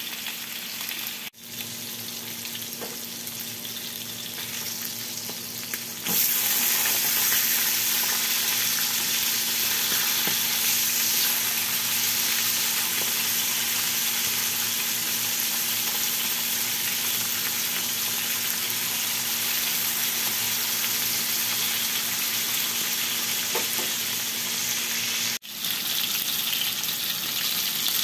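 Salmon fillets sizzling as they pan-fry in oil in a frying pan: a steady hiss that gets louder about six seconds in, broken twice by a momentary dropout.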